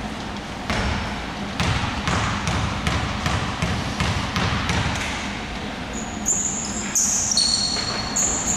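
Basketball bounced on a hardwood court in a steady series of dribbles, about two a second: a free-throw shooter's pre-shot routine. Near the end come short high squeaks of sneakers on the floor.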